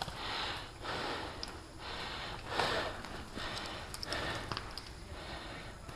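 A person breathing heavily and audibly, about one breath a second, close to the microphone.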